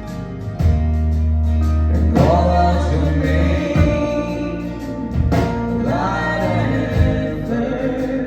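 Live band playing a song: a singer's voice over guitars with a deep, sustained bass line.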